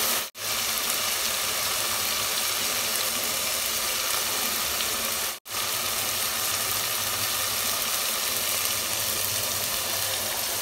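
Masala paste and oil sizzling steadily in a pot, fried down until the oil has separated on top, cutting out abruptly twice.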